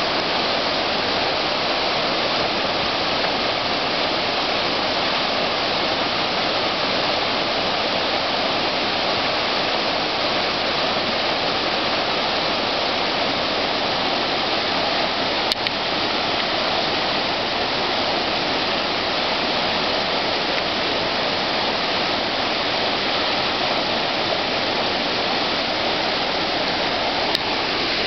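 Whitewater creek rapids rushing steadily, with a brief click about halfway through and another near the end.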